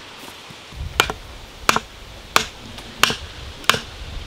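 A hatchet striking wood five times in a steady rhythm, about one sharp blow every two-thirds of a second, starting about a second in.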